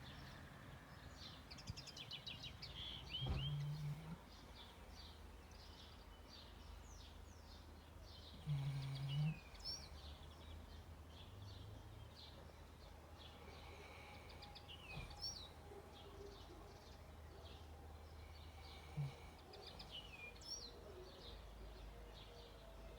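A sleeping dog snoring, a few low snores some five seconds apart. Birds chirp throughout in the background.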